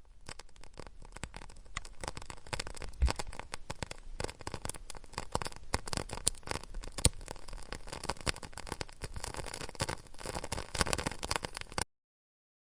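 Wood campfire crackling steadily, with sharper, louder pops every few seconds; the sound cuts off suddenly near the end.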